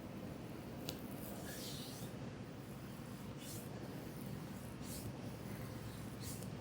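Hands stroking oiled skin during a shoulder and back massage: a faint swish about every second and a half, over a steady low hum. A single sharp click about a second in.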